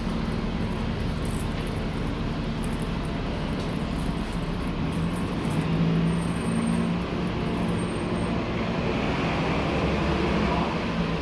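Steady engine and traffic rumble with a low hum that grows stronger about five seconds in.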